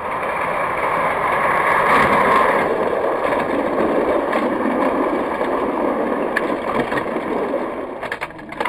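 Die-cast toy trucks rolling down a plastic race track: a steady rattling rumble that fades near the end, with a few clicks as it dies away.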